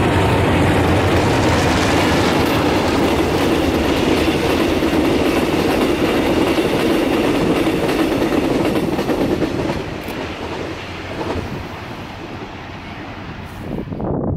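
Train passing close by, a loud steady rumble of wheels on rail that eases off about ten seconds in.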